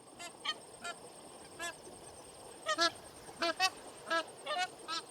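Waterfowl honking: about a dozen short, pitched honks in an irregular series over a faint steady hiss, the loudest near the middle. It is a speculative reconstruction of the extinct Vegavis's voice, made from yellow-billed pintail and magpie goose recordings.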